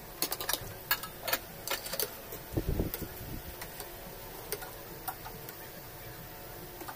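Spoons and forks clicking and scraping against plates while eating, a quick run of light clicks over the first three seconds, then only a few.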